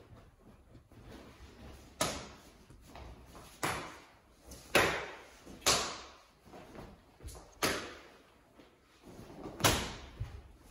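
Sharp swishing bursts from strikes thrown during a martial-arts form, six in all, spaced one to two seconds apart, each dying away quickly, with quieter shuffling of feet on a tile floor between them.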